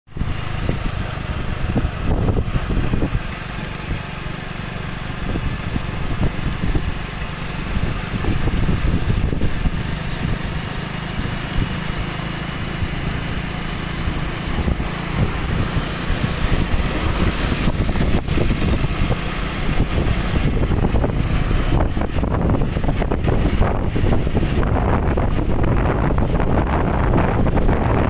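Steady rumble of motor vehicles running, with no clear start or stop.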